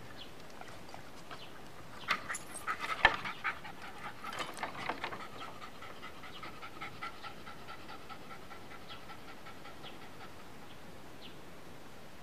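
A dog panting, with a run of sharp clicks and knocks between about two and five seconds in, the loudest about three seconds in. After that a faint steady high tone runs on.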